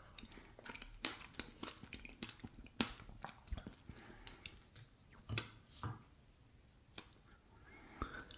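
A person eating skyr with raspberry sorbet and berries: faint, close-up chewing and wet mouth clicks, busiest in the first half and sparse toward the end.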